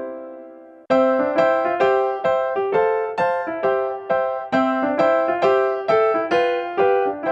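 Background music on solo piano: a held chord fades out, then a bouncy, classical-style melody starts again about a second in, as a steady run of notes.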